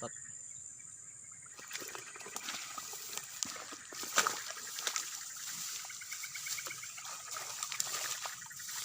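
Water splashing and trickling with irregular knocks and rustles, starting about a second and a half in, over crickets trilling.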